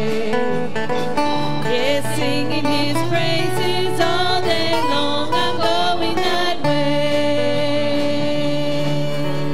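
Bluegrass gospel song: a woman singing into a microphone over acoustic guitar and electric bass, the music settling on a long held note about two-thirds of the way through.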